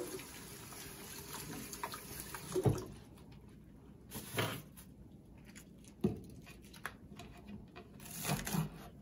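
Kitchen faucet running onto scallions held under the stream as they are rinsed; the water is shut off about three seconds in. After that come a few scattered light knocks.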